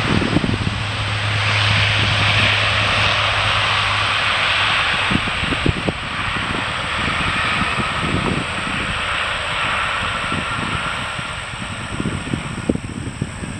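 The four turboprop engines of an Airbus A400M Atlas at takeoff power, a steady roar that slowly fades as the aircraft moves away.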